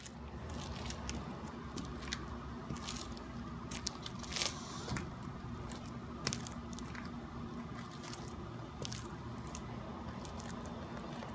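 Scattered light scuffs and taps of sneaker soles on a porch floor over a steady low outdoor hum, the two strongest taps about four and a half and six seconds in.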